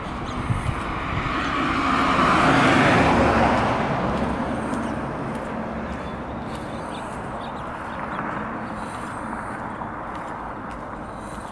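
A car passes by on the street. Its tyre and engine noise swells to a peak about two to three seconds in, then fades away.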